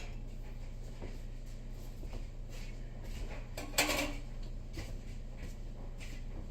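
A short clatter of kitchen things being handled about four seconds in, like a drawer or cupboard opening, over a steady low hum.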